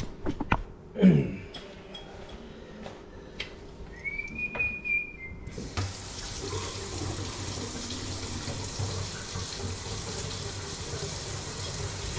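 A kitchen faucet is turned on about halfway through, and water runs steadily into the sink and down the drain. A few knocks come early on, and a brief high whistle-like tone sounds just before the water starts.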